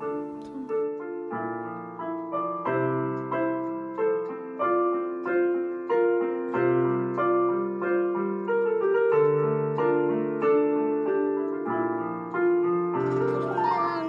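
Background piano music: a slow tune of single notes over low bass notes.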